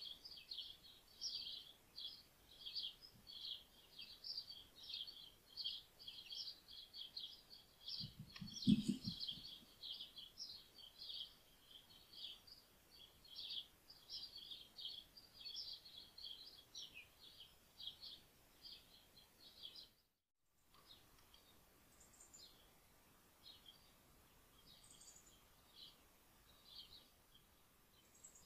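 Small birds chirping rapidly and continuously. A low thump about a third of the way in is the loudest sound. About two-thirds in, the sound cuts out for a moment, then the chirping comes back sparser over a faint steady tone.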